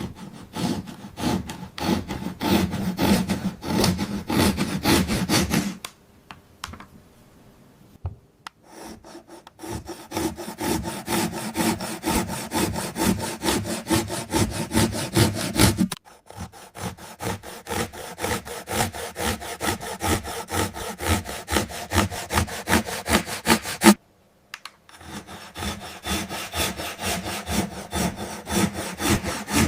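A saw cutting through toys with fast, evenly repeated back-and-forth strokes. There is a quieter lull about six seconds in, and the sawing starts again after short breaks near the middle and about three-quarters through.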